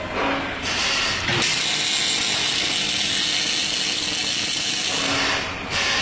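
Dyna Auto XS350 MIG welder arc welding: a couple of short bursts of arc noise, then a steady continuous crackling hiss for about three and a half seconds that stops near the end.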